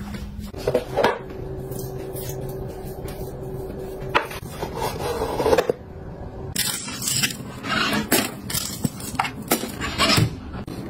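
Scraping, knocking and light plastic clatter from household cleaning, with a steady tone in the first few seconds and many short sharp knocks and scrapes in the second half.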